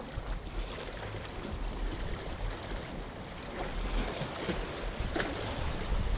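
Small sea waves lapping and splashing against breakwater boulders, with wind buffeting the microphone. There is a slightly sharper splash about five seconds in.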